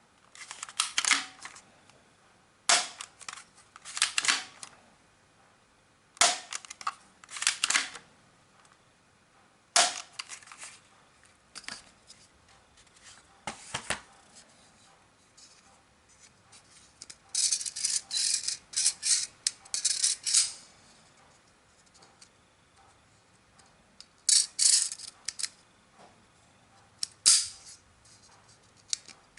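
Toy airsoft Desert Eagle pistol clicking and snapping in short groups of sharp clicks as it is handled and fired, with a longer run of rapid clicks a little past halfway.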